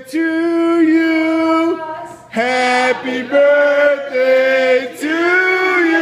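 Loud singing, holding long notes of a second or so each with short breaths between them.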